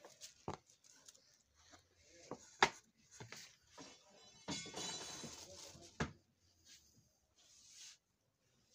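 Hands handling a boxed fabric suit, its tissue paper and a glossy printed picture card: paper and cloth rustling, with a few sharp taps, the loudest about two and a half seconds in, and a longer rustle near the middle.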